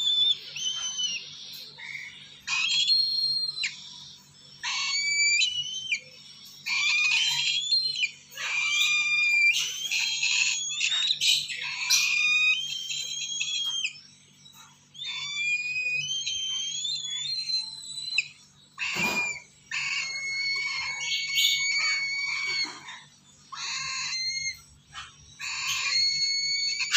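Lesser sulphur-crested cockatoo chicks calling over and over with high, whistling screeches in runs with short pauses, the begging calls of nestlings reaching for a hand. One call about two-thirds through is rougher and noisier.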